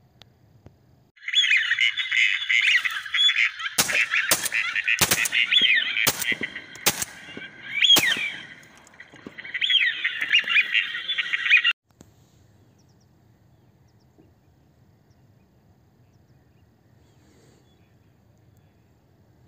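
A dense chorus of calling ducks from a large flock, many calls overlapping, which cuts off suddenly about halfway through. Six sharp cracks sound through the chorus, less than a second apart.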